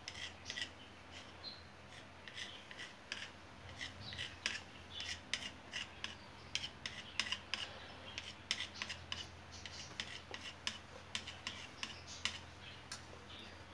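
Knife blade cutting short slits into a rolled-out sheet of dough, each cut a faint tap and scrape of the blade against the worktop, repeated many times in quick, uneven succession.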